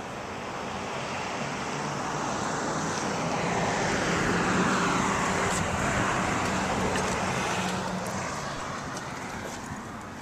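A road vehicle driving past: its tyre and engine noise swells to a peak about halfway through and then fades, with a sweeping change in pitch as it goes by.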